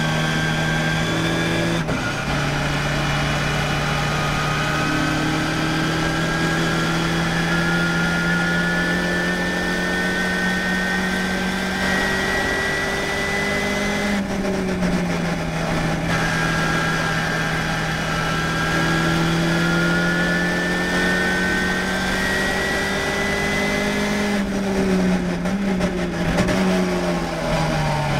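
Ginetta G40 race car's engine heard from inside the cockpit, pulling at steady throttle with its pitch slowly climbing, dipping briefly about halfway through. Near the end the pitch wavers and falls as the car slows for a corner, over a constant haze of road and wind noise.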